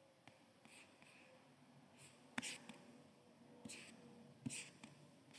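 Near silence: faint room tone with a few soft hissy rustles and a couple of faint clicks.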